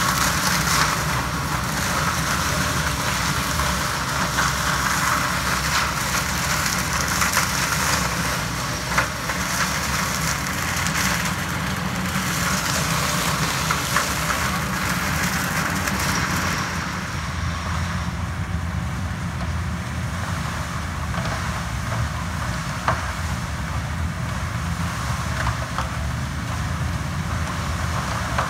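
Yanmar HS2000 sugarcane harvester working in cane: a steady engine drone under a dense high hiss with scattered snaps from the cane being cut. The hiss drops away about two-thirds of the way through, leaving mostly the engine.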